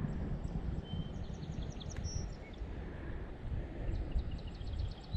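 Songbirds calling: two quick runs of short, high, rising chirps, with a few single whistled notes between, over a steady low rumble of wind on the microphone.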